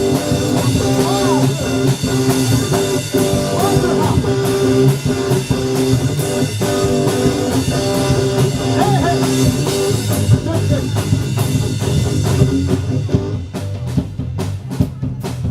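Live rock band playing, with guitar and a drum kit. Near the end the other instruments drop out and the drum kit carries on alone.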